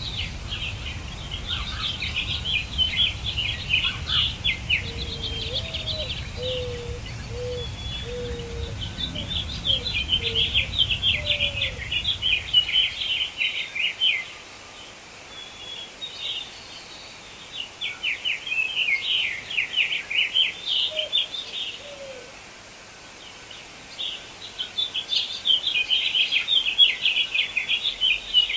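Songbird singing in bouts of rapid, high chattering trills a few seconds long, with short pauses between them. A few low notes come in the first third, and a low background rumble stops about halfway through.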